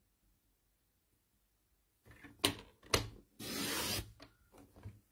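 Stampin' Up sliding-blade paper trimmer cutting a strip of cardstock: two sharp clicks, then about half a second of scraping as the blade carriage slides down the track through the card, and a few small clicks near the end.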